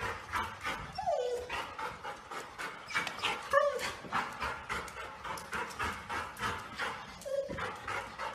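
Golden retriever whining, three short whines that fall in pitch, with quick panting, about three breaths a second, between them.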